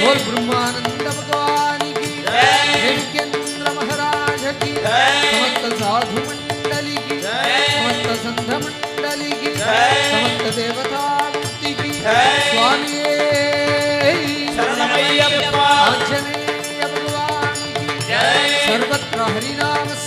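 Devotional sankeerthanam music: steady held drone tones under a melodic phrase that rises and repeats about every two and a half seconds.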